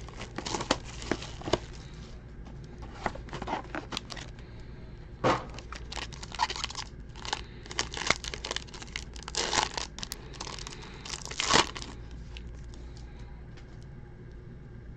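A sealed trading card box and the wrapped pack inside being torn open by hand: irregular crinkling and rustling of wrapper and cardboard, with a few sharper rips about five, nine and eleven seconds in.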